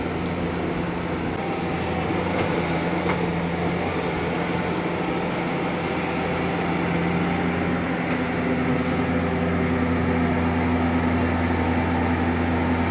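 Large diesel engine running steadily with a low hum, getting a little louder in the second half.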